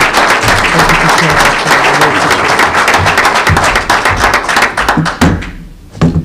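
A small room of people applauding, dense clapping that dies away about five seconds in, followed by a couple of short knocks near the end.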